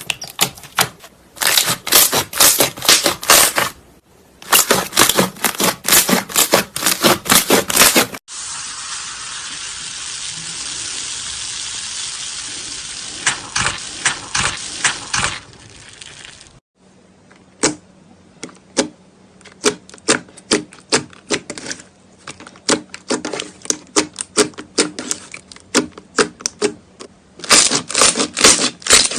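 Slime being squeezed and poked by hand, giving quick runs of sticky clicks and pops. In the middle a steady crackling hiss runs for about eight seconds before the clicking comes back, sparser at first and dense again near the end.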